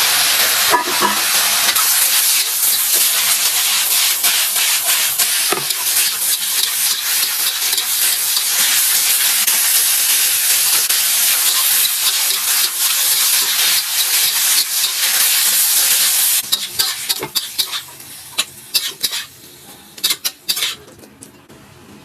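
Food being stir-fried in a hot pan: a loud, steady sizzle broken by the clicks and scrapes of a spatula stirring. About sixteen seconds in the sizzle drops away, leaving only scattered clicks of the utensil against the pan.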